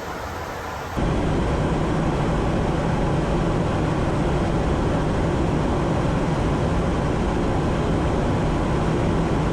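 Steady rushing air and jet engine noise inside a KC-135 tanker in flight. About a second in it jumps louder, with a stronger low rumble that then holds steady.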